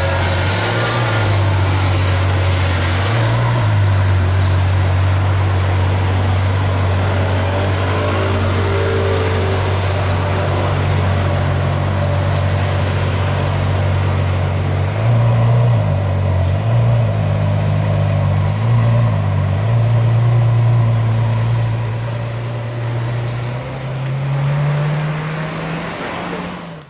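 Car engines and street traffic: a steady low engine rumble that rises and falls in pitch, with a vehicle passing about eight seconds in. The sound fades out at the very end.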